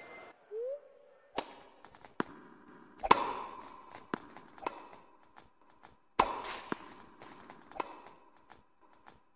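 Tennis ball being struck with a racket and bouncing: a string of sharp pops at uneven intervals, the loudest about three and six seconds in. A faint steady tone sits behind them.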